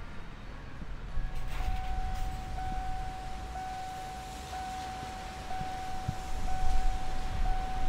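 A steady high electronic tone starts about one and a half seconds in and holds one pitch, dipping briefly about once a second, over a low outdoor rumble.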